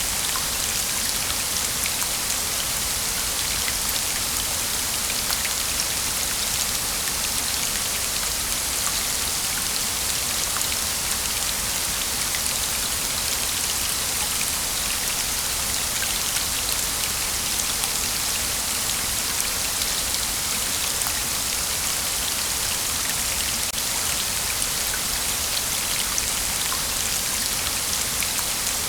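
Waterfall: falling water making a steady, even hiss with many small splashing ticks.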